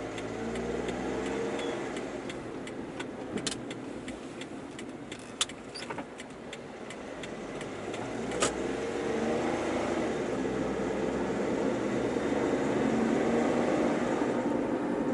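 Car engine and road noise heard from inside the cabin while driving, swelling and easing with speed, with a few light clicks around the middle and a sharper one after about eight seconds.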